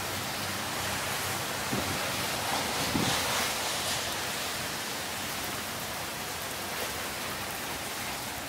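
Steady outdoor hiss of wind and rain, with brief low gusts of wind on the microphone about two and three seconds in.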